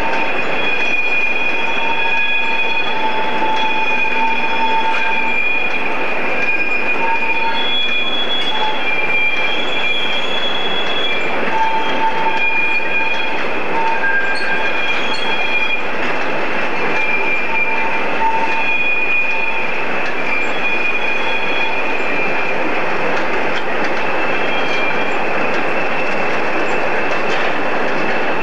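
Freight train of empty bogie flat wagons rolling slowly past, its wheels squealing in thin, high, wavering tones that come and go over a steady rolling rumble.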